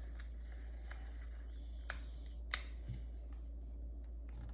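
Sheet of paper being handled and folded by hand: faint rustles and light ticks, with two sharper clicks a little after halfway.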